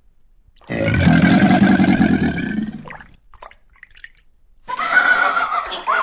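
A loud, rough animal call about two seconds long, followed by a second animal call near the end.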